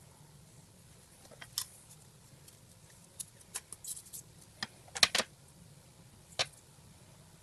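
Irregular sharp clicks and taps of small hard parts being handled while reassembling a dual cup holder, with a loud close pair about five seconds in.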